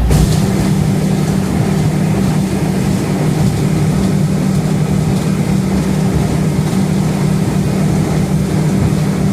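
A boat's twin motors running steadily under way, a continuous drone with water and wind noise, running smoothly with their cooling lines freshly cleared.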